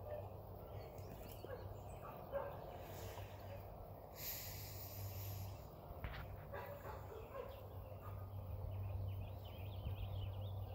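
Dogs barking faintly over a steady low hum.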